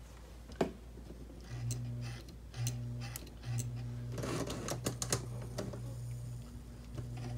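1946 Lionel 2020 turbine locomotive under track power giving a low, steady electrical buzz that starts and stops four times, mixed with a few sharp clicks from its mechanism. The locomotive is still not running properly.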